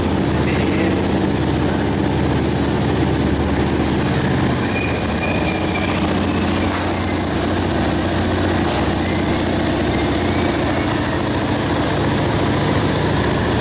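Yamaha Fazer motorcycle engine idling steadily through a Roncar Coyote RS5 aftermarket exhaust.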